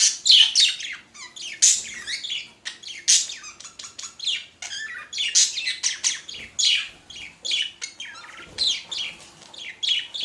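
Budgerigars chattering: a rapid, unbroken run of short high chirps and squawks.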